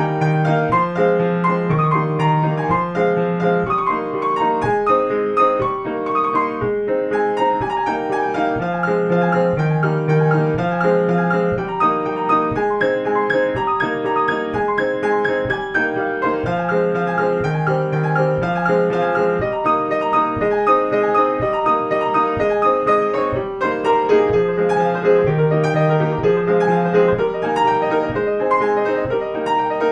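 Background piano music: a continuous run of notes over a low bass figure that comes back about every eight seconds.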